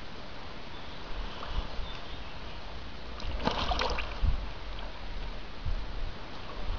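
Lake water sloshing and splashing as a large carp is handled on a floating unhooking mat in the shallows, with a brief burst of splashing about three and a half seconds in.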